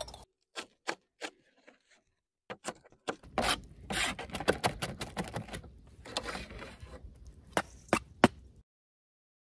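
Chef's knife chopping fresh parsley on a plastic cutting board. A few separate taps come first, then a quick, steady run of chopping from about three seconds in, with a few sharp knocks near the end.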